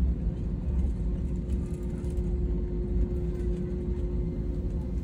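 Airliner cabin noise while taxiing: a steady low rumble from the jet engines at idle and the rolling aircraft, with a constant hum.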